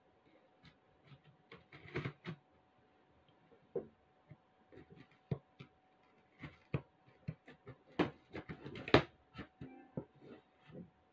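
Scissors cutting open the packing tape on a cardboard box: irregular snips, scrapes and taps of the blades against the cardboard, the loudest two close together about eight and nine seconds in.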